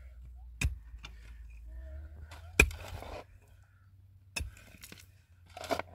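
Pickaxe striking hard, stony ground three times, about two seconds apart, the middle blow loudest and followed by a brief rattle. A scraping rustle near the end.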